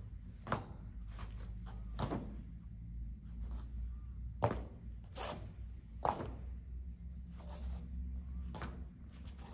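Short sharp swishes and snaps of a taekwondo uniform, with steps on foam mats, as blocks and punches are thrown. About eight brief sounds come at uneven intervals.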